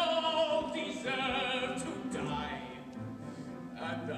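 A singer holding long notes with strong vibrato over the accompaniment of a live stage musical, heard from the audience.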